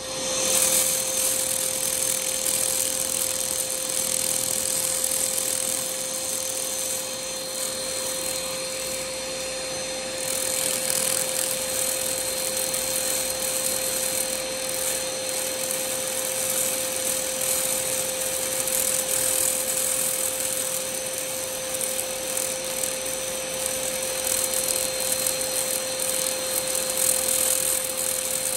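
100 W laser cleaner working over a nickel-aluminium bronze boat propeller, ablating organic growth: a steady hiss and crackle over a constant mid-pitched hum, the crackle growing brighter about ten seconds in.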